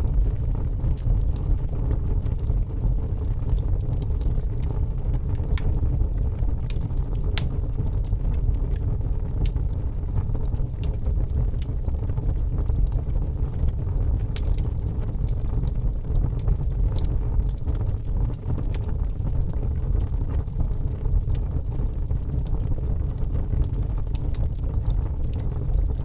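Open wood fire burning: scattered sharp crackles and pops over a steady low rumble.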